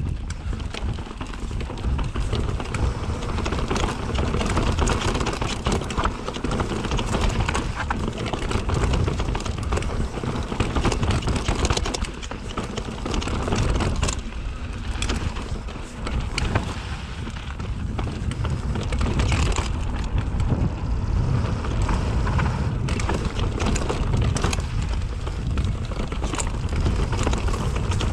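Mountain bike riding over a rocky dirt trail: tyres rolling over stone and dirt, with frequent knocks and rattles from the bike over bumps, under steady wind rumble on the microphone.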